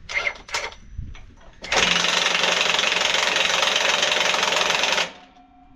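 Cordless impact wrench hammering steadily for about three seconds on a seized nut of a Mack truck's spring trunnion, worked without heat, after a few short knocks as the tool is fitted.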